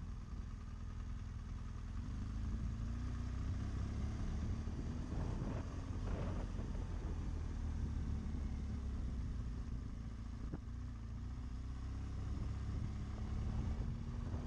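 GS adventure motorcycle's engine running at low road speed. The engine note rises and falls gently with the throttle.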